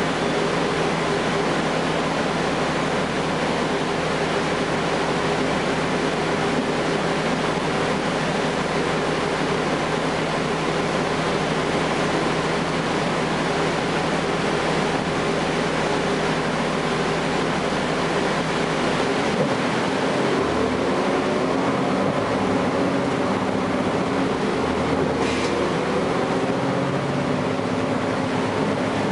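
Cummins ISL9 diesel and Allison B400R transmission of a 2012 Gillig Low Floor bus, heard from inside the cabin: a steady drone of engine and road noise while the bus moves, then about twenty seconds in the engine note climbs and holds at a higher pitch. There is a short click near the end.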